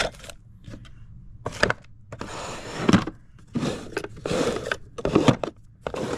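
Rummaging through a wooden tool box: irregular rustling as items are handled, with a few sharp knocks and clinks of small tools and parts.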